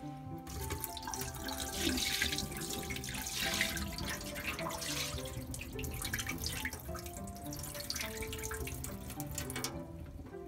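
Tap water running and splashing into a stainless bowl of salmon roe in a kitchen sink as the roe is rinsed, with many small splashes; the water stops shortly before the end.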